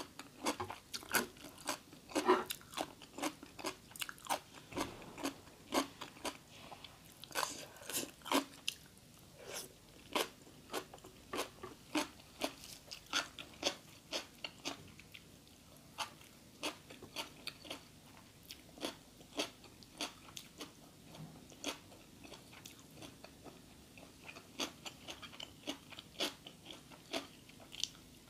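A person chewing and crunching food close to the microphone, with crisp crunches coming irregularly, about two or three a second.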